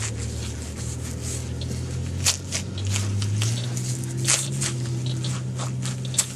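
Teknetics Omega metal detector sounding a low steady target tone that steps up and down in pitch a few times as the coil sweeps a deep target reading unsteadily in the penny range. Short crackling clicks and scrapes of handling run through it.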